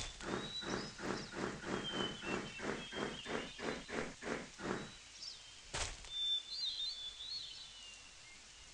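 An animal calling in a steady rhythmic series, about three calls a second for some five seconds, then stopping. Birds chirp in the background, and there is a single sharp click near six seconds.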